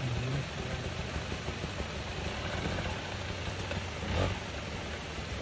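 Enduro dirt bike's engine running and revving unevenly as the rider struggles to get it up a steep, muddy climb, with a brief louder burst about four seconds in.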